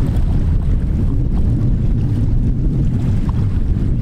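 Steady wind rumbling on the microphone, with small waves washing onto the beach underneath.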